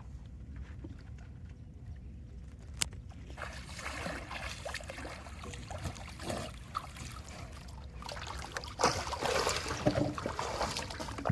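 Water sloshing and trickling against a small boat, with one sharp knock about three seconds in. The sloshing grows louder from about nine seconds in.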